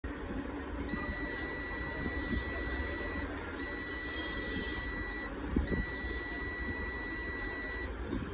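Electronic beeper sounding a steady high-pitched tone three times, each lasting about two seconds with short breaks between, over a constant background hiss and hum.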